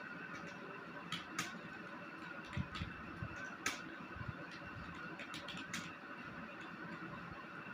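Scattered, unevenly spaced clicks of keys on a computer keyboard, about a dozen, over a steady background hiss.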